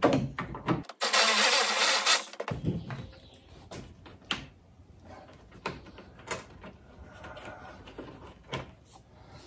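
A power tool whirs loudly for about a second and a half, about a second in, backing out a bolt on the hatch-strut bracket. After it come scattered clicks and clinks of tools and metal parts being handled.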